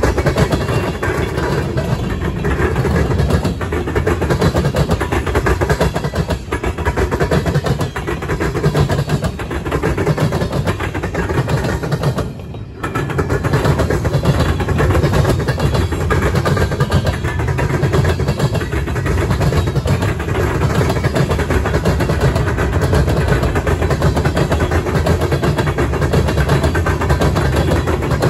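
Mixed freight train cars rolling past close by at speed: steel wheels rumbling and clicking over the rails. The sound briefly drops away about halfway through.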